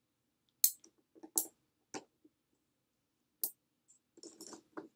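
Steel balls snapping onto a magnet and against each other: a few sharp metallic clicks about a second apart, then a quick run of small clicks and rattles near the end.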